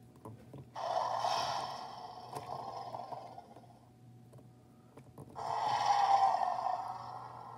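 Electronic roar sound effect from a Baryonyx dinosaur action figure's speaker, played twice, each roar lasting about two seconds.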